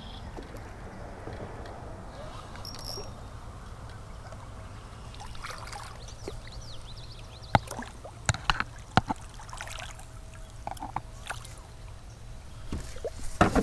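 A hooked smallmouth bass splashing and thrashing at the surface of creek water as it is reeled in, with a cluster of sharp splashes a little past the middle and more near the end, over a steady wash of running water.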